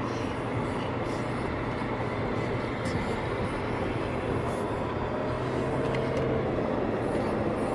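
Steady road and engine noise heard inside a moving car's cabin, with a low, even hum.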